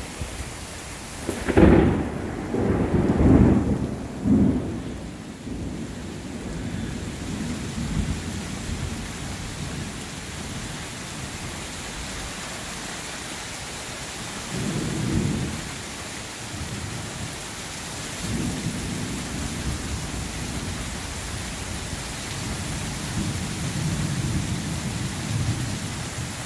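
Thunder over steady rain: a sharp clap about a second and a half in rolls into low rumbling for a few seconds, and further low rumbles follow about halfway through and near the end.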